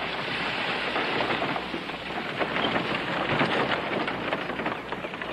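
One-horse buggy pulling away over a dirt yard: a steady, dense clatter of hooves and rattling wooden-spoked wheels.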